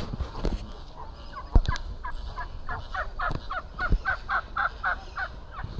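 A turkey calling a long series of short, evenly spaced notes, about three a second. A sharp knock about one and a half seconds in, with a few fainter ones.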